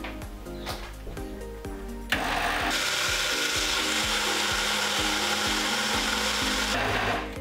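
Kenwood jug blender running, puréeing cooked potato and leek soup. It starts about two seconds in, runs steadily for about five seconds and stops just before the end.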